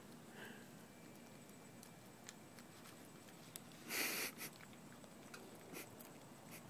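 Small dog licking an ice cream cone: faint wet licks and small mouth clicks, with one short louder burst of noise about four seconds in.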